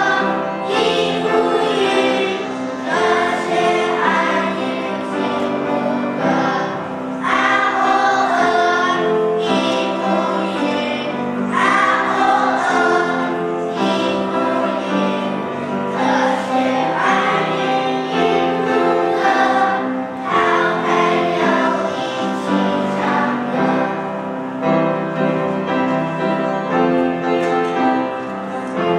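Children's choir singing a song together, with a steady instrumental accompaniment under the voices.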